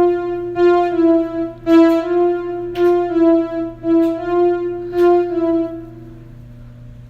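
Electronic keyboard playing a simple melody of single notes, each struck note followed by a short sustain, the tune fading away in the last couple of seconds. A steady low hum sits underneath.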